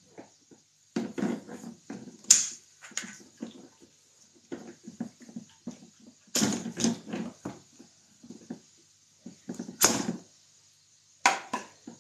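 Plastic hose and attachment parts of a DeWalt shop vac being handled and fitted together: irregular knocks and rustles with a few sharp clicks.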